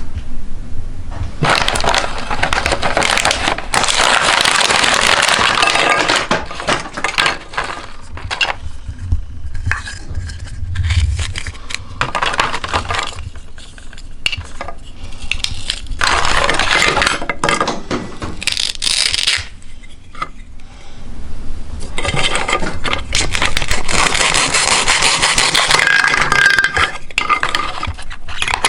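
Meat grinder crunching up hard plastic toy food: continuous cracking, snapping and scraping of plastic over a low motor hum, in uneven spells with several short lulls.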